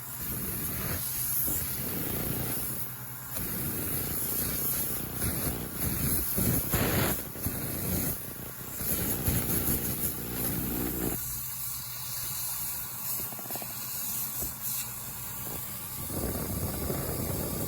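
Airbrush hissing on and off as its trigger is worked, running on compressed air regulated to about 25 psi, with a steady low hum underneath.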